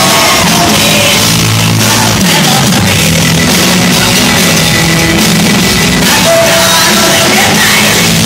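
Live rock band playing loudly through the venue's sound system: electric guitars, bass and drums, with singing.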